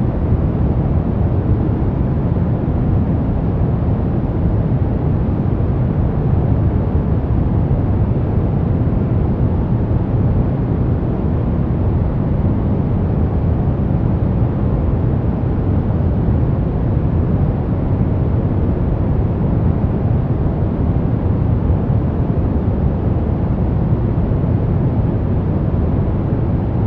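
Continuous brown noise: a steady, deep rumbling hiss with most of its weight in the low end, unchanging throughout.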